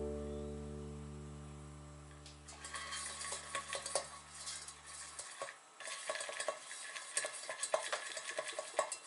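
A silicone pastry brush dabbing and swishing oil around inside the cups of a metal muffin tin, a quick irregular run of small clicks and wet scrapes that starts about two and a half seconds in. Before it, the last chord of background music fades out.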